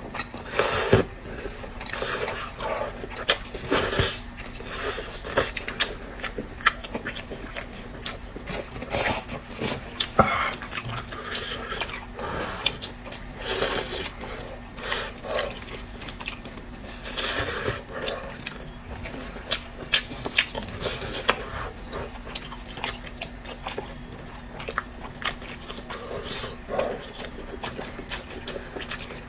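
A person chewing and biting meat close to the microphone, with irregular moist clicks and bites throughout, over a faint steady hum.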